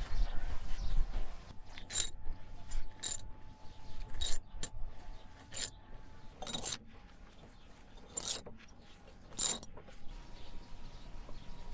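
Sharp metallic clicks, about nine at irregular intervals roughly a second apart, from a ratchet wrench tightening the bolt on a perforated steel strapping band around a brick tandoor.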